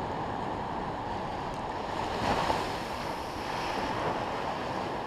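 Ocean surf washing onto a sandy beach, a steady rush that swells a little after two seconds in, with wind on the microphone.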